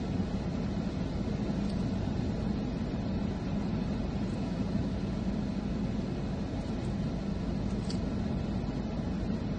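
Steady low hum of a car running, heard from inside its cabin, with a couple of faint clicks.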